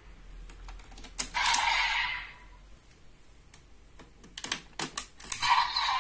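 Hard plastic clicks and snaps from a Desire Driver toy belt as its Raise Buckles are pulled out and slotted in. About a second in there is a short electronic whoosh, and near the end one of the toy's electronic sound effects starts up.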